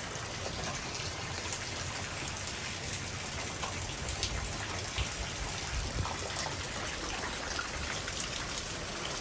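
Steady thunderstorm rain falling, with scattered sharp drop ticks over an even hiss and low rumbles of light wind on the microphone.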